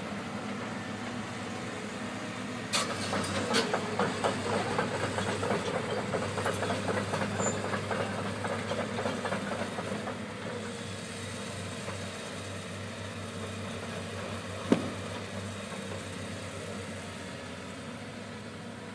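Heavy machinery running with a steady low hum. Rapid metallic clattering from about three to ten seconds in, and a single sharp knock near the end.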